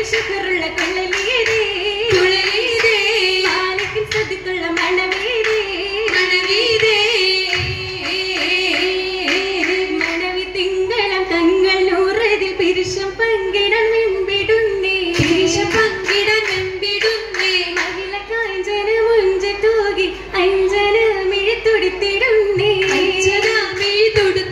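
Oppana song (Mappilappattu) sung by female voices in one continuous melody, with hand-clapping keeping the rhythm.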